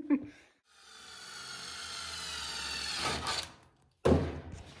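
Milwaukee Fuel brushless cordless drill running for about three seconds, drilling a hole through the edge of a sheet-metal cabinet shelf with a steady whine that turns rougher just before it stops. A sudden sharp knock follows near the end.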